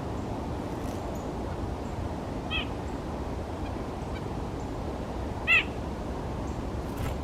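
A nuthatch giving two single nasal, honk-like calls about three seconds apart, the second louder, over a steady low background rumble.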